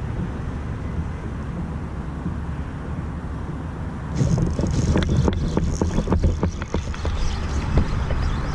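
Wind buffeting the microphone as a steady low rumble. From about four seconds in comes a dense run of sharp clicks and hiss over it.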